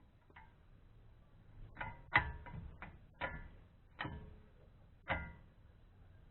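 A series of sharp metallic clinks, each with a brief ringing tone: metal tools or brake parts knocking together. About seven strikes come unevenly over a few seconds, the loudest about two seconds in.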